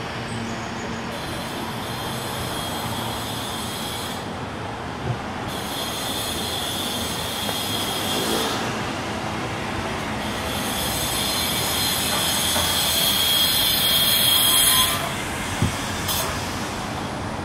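High-pitched squealing that comes and goes in four stretches, the last and longest building for about five seconds before cutting off suddenly, over a steady rumbling noise.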